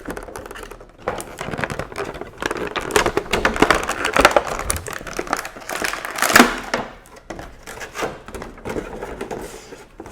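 Packaging crinkling and rustling as unboxed items are handled, with many small irregular clicks and rustles; the loudest rustle comes about six seconds in.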